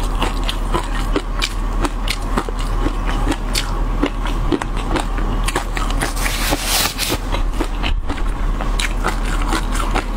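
Close-miked mouth sounds of someone eating spicy shrimp: wet chewing and biting with a steady run of sharp clicks and crunches, about three a second, and a louder, noisier stretch around six to seven seconds in.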